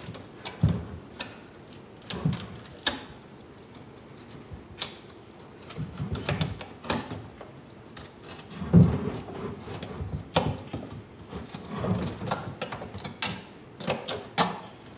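Irregular knocks, clicks and soft thuds as a boiled skull is handled and turned in a plastic utility sink, its bone bumping the tub while cooked tissue is pulled off by hand. There is a heavier cluster of thumps about nine seconds in.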